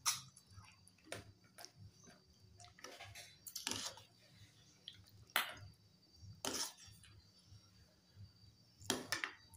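Eating sounds of rice being eaten by hand: chewing and mouth smacks, with a handful of short sharp clinks of a spoon against ceramic and metal bowls.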